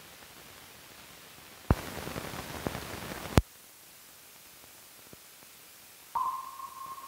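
Run-out noise of an old film soundtrack after the music ends: faint hiss, then a sharp click opening a louder stretch of crackling hiss that ends in a sharp pop. Near the end another click brings in a short steady high tone that fades away.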